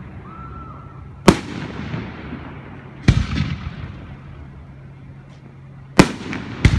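Aerial firework shells bursting overhead: four sharp bangs, about a second in, about three seconds in, and two close together near the end, each followed by a rolling echo.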